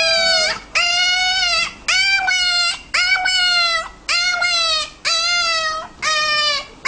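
A pet's repeated vocal calls, seven in a row with another starting near the end, each under a second long, holding a steady high pitch and falling at the end, about one a second.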